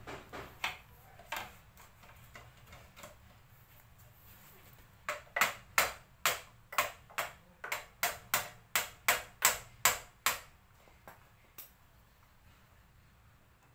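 Sharp metallic clicks from hand tools on motorcycle brake parts: a few scattered ones, then a quick even run of about a dozen, two to three a second, from about five to ten seconds in.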